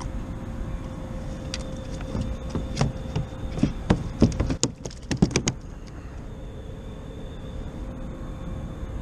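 A quick run of sharp clicks and knocks, about two to five seconds in, from fishing gear and rod being handled on a plastic kayak, over steady background noise with a faint steady hum.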